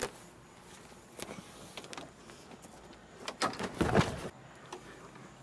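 Quiet handling noise from a hand-held camera being swung about, with a knock at the start and a few louder rustling knocks a little past the middle.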